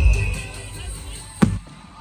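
Fireworks display: rumbling booms die away in the first half second, then a single sharp bang about one and a half seconds in, with music playing underneath.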